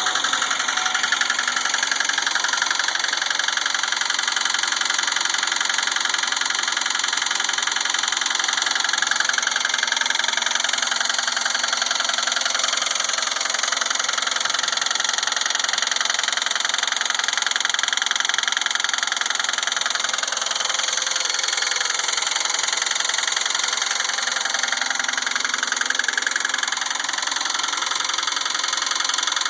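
The supercharged 3800 V6 of a 2004 Pontiac Grand Prix GTP Comp G running at a steady idle with a fast, even knock in time with the engine, which the owner calls engine knock.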